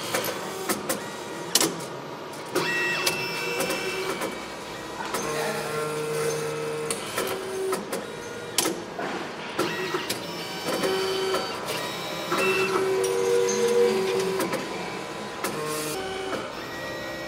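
Electric motors of a machine running in short stop-start runs, each a steady whine at a different pitch, with scattered clicks and knocks.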